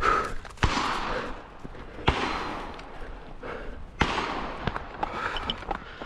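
Gunshots fired one at a time, roughly one to two seconds apart, each sharp crack followed by a trailing wash of echo.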